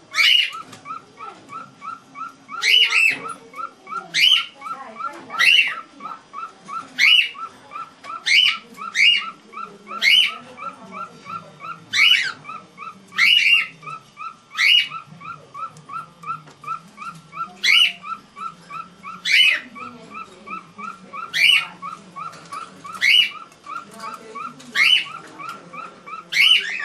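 Cockatiels calling: loud, sharp high chirps repeat about every second and a half over a steady, faster run of soft chirping notes, in a repeating serenade-like song.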